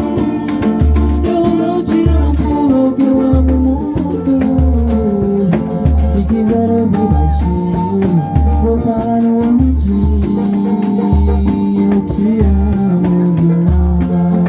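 Pagode-style samba music played without singing: a low drum beat repeats about every three-quarters of a second under plucked strings and a shaker.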